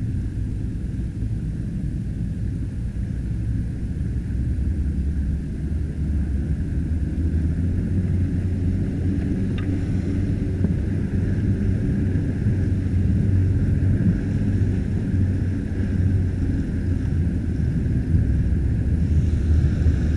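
Engine of an inflatable motorboat running under way, a steady low drone with water noise, getting louder in the second half.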